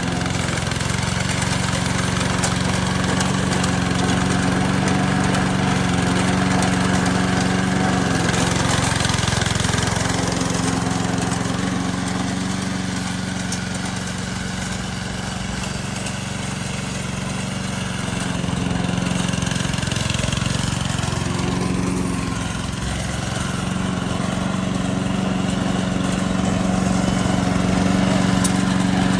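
Gasoline engine of a remote-control tracked lawn mower running steadily, its level easing off and picking up a little as it works.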